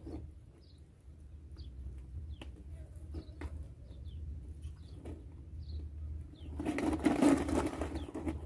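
Scattered short, high bird chirps over a steady low rumble. Near the end comes a louder rush of noise lasting about a second and a half.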